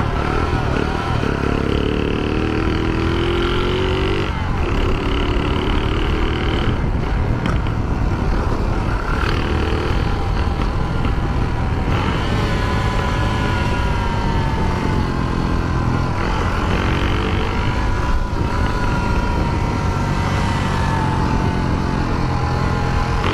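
Small 49cc moped engine running at riding speed, its pitch rising and falling repeatedly as the throttle is opened and eased.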